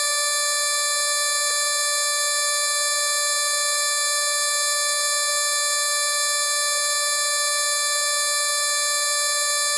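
A steady electronic drone of several high pitches sounding at once, buzzer-like and unchanging in level.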